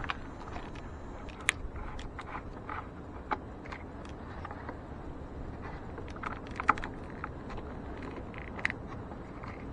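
Irregular small clicks and taps of a cable and its plastic split-loom tubing being handled and fitted onto a truck battery terminal, two sharper clicks standing out, over a steady low background noise.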